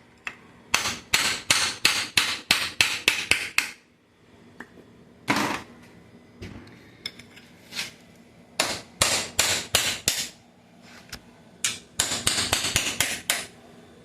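Hammer blows on a gearbox part, sharp metallic strikes in quick runs of about four a second, with pauses between the runs.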